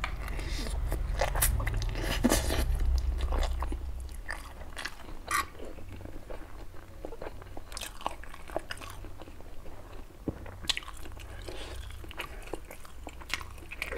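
A person eating stir-fried instant noodles close to the microphone: noisy slurping of noodles for the first few seconds, then quieter wet chewing with scattered smacks and clicks.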